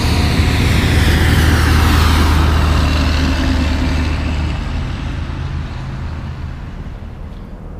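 Heavy diesel trucks driving past on a highway, including an empty Kenworth W900 logging truck with its trailer piggybacked: a deep engine drone and tyre noise, with a falling whine about two seconds in, fading as the trucks move away.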